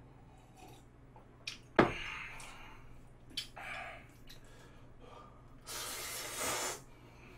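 A mug is set down on a table with a sharp knock about two seconds in, followed by small clicks of chopsticks. Near the end comes a long slurp of stir-fried noodles lasting about a second.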